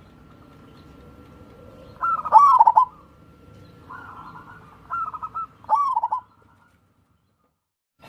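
Perkutut (zebra dove) cooing in rippling, rolling phrases. One full phrase comes about two seconds in, then three shorter bursts follow, and the sound drops away suddenly about six seconds in.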